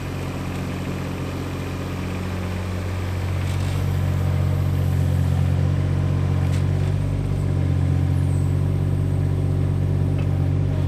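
Case CX17C mini-excavator's diesel engine running steadily under the load of digging, getting louder about four seconds in as the bucket scoops and lifts soil.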